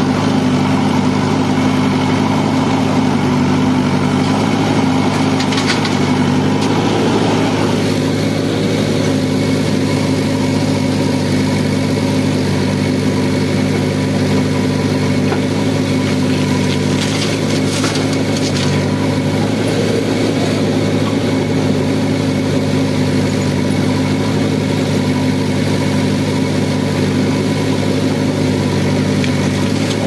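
Diesel engine of a JCB 3DX backhoe loader running steadily at constant speed while the backhoe works.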